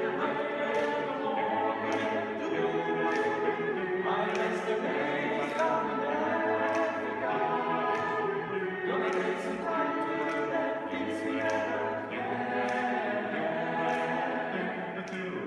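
Male choir singing a cappella in several voice parts: sustained chords that move to new harmonies every few seconds.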